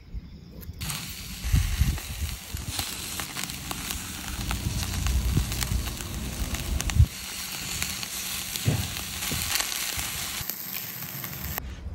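Thin slices of meat sizzling on a wire grill over charcoal, a steady hiss full of small crackles and pops. It starts abruptly about a second in and cuts off shortly before the end, with a few low thumps underneath, the strongest about seven seconds in.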